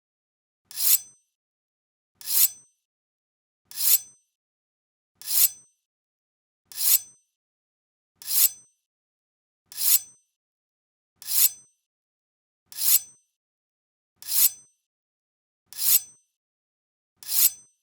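Katana drawn from its scabbard: a quick metallic scrape with a thin ring, repeated about every second and a half, a dozen times.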